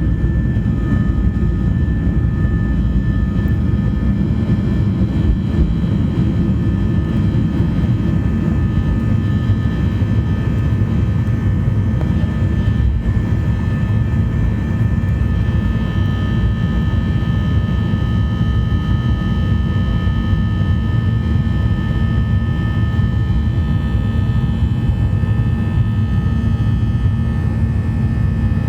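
Boeing 737-800's CFM56 turbofan engines running at steady power, heard from inside the cabin as a loud, even low rumble with a few steady high whining tones over it.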